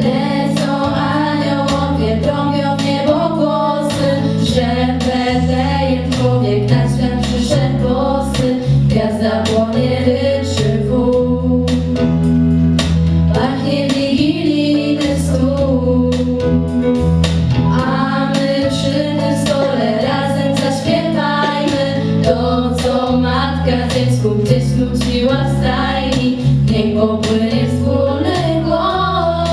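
A girls' vocal group singing a Christmas carol in harmony through microphones, over a steady instrumental accompaniment with a bass line that steps from note to note.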